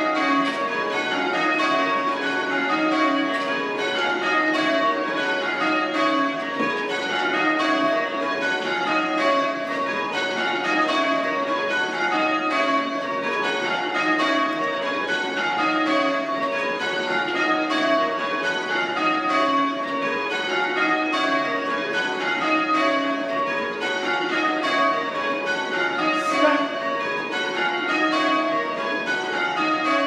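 Change ringing on a ring of six church bells, a light 5 cwt 1988 Whitechapel ring in C#, being rung up: the bells strike in rounds, each row falling from the highest bell to the lowest, over and over at an even pace.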